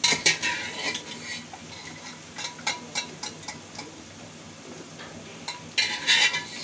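Steel spoon scraping and clinking against steel vessels as boiled cauliflower and potato are scooped out, with a short metallic ring. There is a cluster of clinks at the start, scattered single taps, and a second cluster near the end.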